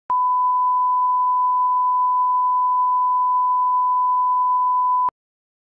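1 kHz broadcast line-up tone. A single steady pure tone of about five seconds, switched on and off abruptly with a click at each end. It is the reference tone for setting playback level at the head of a TV programme recording.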